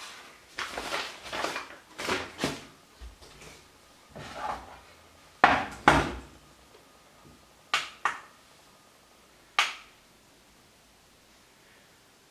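Paper flour bag crinkling in several short bursts as it is handled, followed by a string of sharp knocks and clinks of kitchen things being handled, the loudest two about five and a half and six seconds in.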